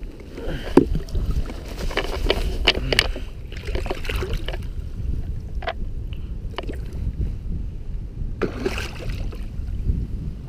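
Water splashing and sloshing at a boat's side as a flathead catfish is released by hand, over a steady low rumble with scattered knocks.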